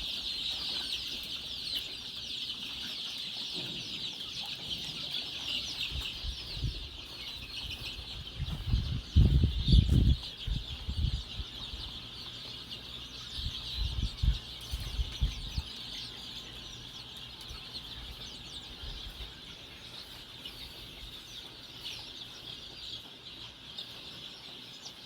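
Free-range chickens clucking over a dense, steady high-pitched chirring. A few low rumbles on the microphone, the loudest around the middle, break in briefly.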